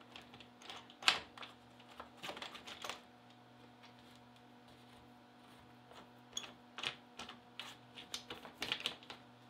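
Hold-down clamps with plastic star knobs being unscrewed and lifted off a CNC router's slotted table: scattered light clicks and knocks in two clusters, the sharpest about a second in, over a faint low steady hum.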